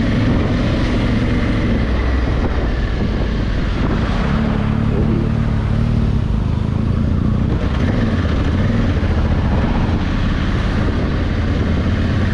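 Honda Africa Twin's 1100 cc parallel-twin engine running steadily under way, with wind rushing over the microphone. The engine note firms up about four seconds in.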